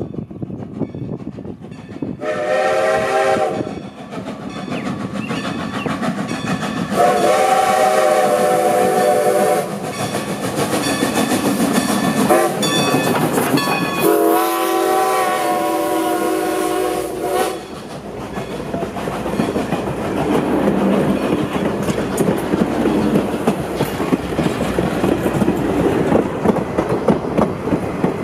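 A train horn sounds two long blasts, one short and one long, the grade-crossing warning signal. The train then passes close by, its wheels clattering steadily over the rail joints.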